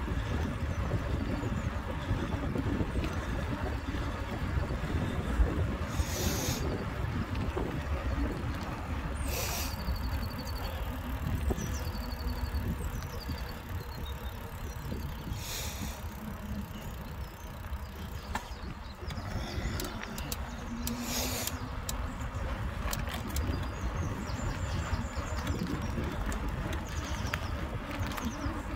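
Wind rushing over a handlebar-mounted phone's microphone, mixed with the tyre roll of a mountain bike on a tarmac path. A few short hissing puffs stand out, and faint bird chirps come through now and then.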